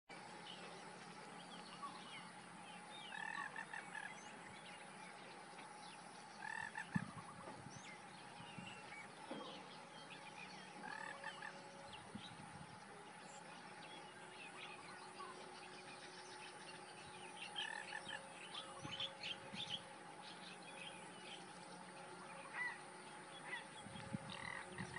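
Faint wetland chorus of bird and frog calls: short calls repeat every few seconds, with a run of quick chirps in the second half, over a steady drone. A single sharp knock about seven seconds in.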